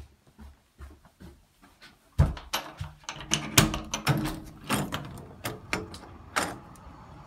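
Soft footsteps at the top of carpeted stairs, then from about two seconds in a loud run of clunks and clacks as an exterior door is unlatched, opened and pushed through. Near the end these give way to a steady outdoor hum.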